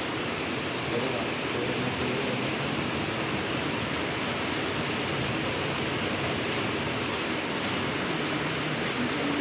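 Steady rushing hiss of a cleaning spray on the oil pump strainer, which is clogged with thick sludge that kept the oil from rising.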